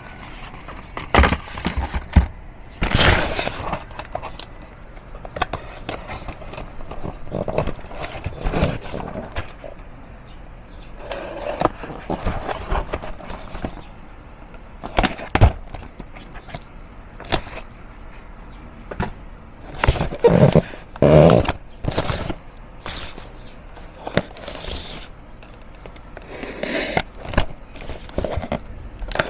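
Cardboard packaging being handled: small paper boxes knocked together and set down on a hard table, and a shipping carton slit and scraped with a utility-knife blade. It comes as irregular knocks, rustles and scrapes, with a few louder scraping bursts about twenty seconds in.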